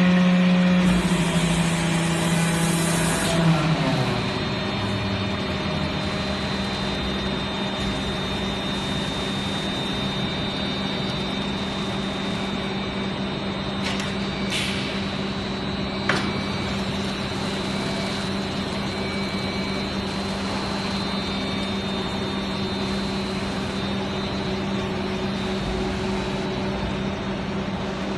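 Foundry moulding machine and conveyor chain line running, a steady mechanical hum with one constant tone. About three to four seconds in, a motor winds down with falling pitch while a hiss stops. A short hiss and a sharp click come around the middle.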